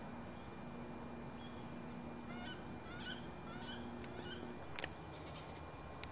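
Distant birds calling four times in quick succession, each call a short choppy series, over a faint steady low hum. Two sharp clicks come near the end.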